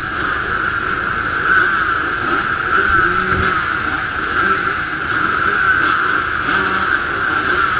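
A row of motocross bikes running together at the start line, their engines held at steady revs in a dense, continuous drone.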